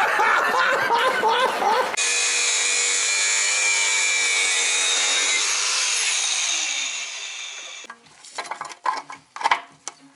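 A brief warbling sound, then an angle grinder cutting metal steadily for about five seconds before it winds down, followed by light metal clinks and knocks.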